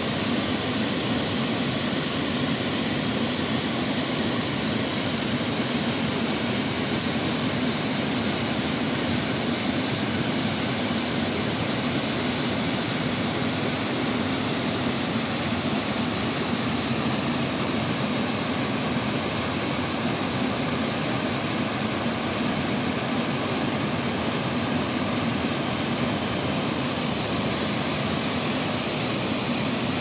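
Waterfall rushing steadily as white water pours through a rock cleft and over ledges into a pool, an even, unbroken roar of water.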